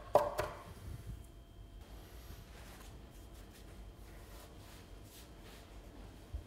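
A large kitchen knife chopping fresh herbs on a wooden cutting board, with one sharp knock of the blade on the wood just after the start and a few quicker chops. After that come soft, faint rustles and light taps as the chopped herbs are gathered together by hand on the board.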